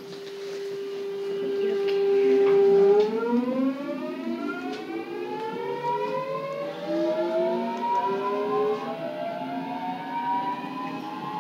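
Busan Metro Line 2 train's inverter-driven traction motors starting away from a station: a steady whine for about three seconds, then several tones rising in pitch together as the train gathers speed.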